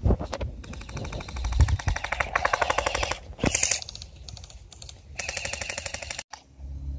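Airsoft rifle firing full-auto bursts as rapid, even clicking: a long burst of about two seconds, then a shorter one about five seconds in.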